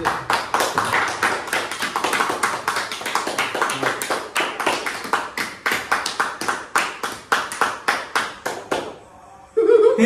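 Several people clapping hands together in a steady rhythm, about four to five claps a second. The clapping stops about a second before the end, and a loud voice rings out.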